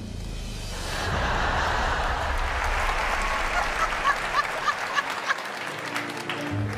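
Studio audience applauding and laughing, swelling about a second in.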